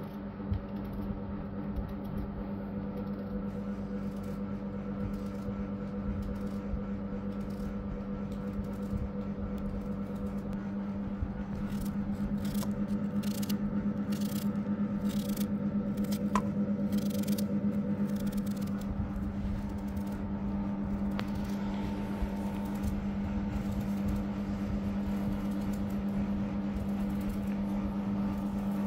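Small kitchen knife slicing an onion held in the hand, a run of short crisp cuts loudest in the middle, with pieces dropping into a metal pot. A steady electrical hum from a household appliance runs under it throughout and is the loudest sound.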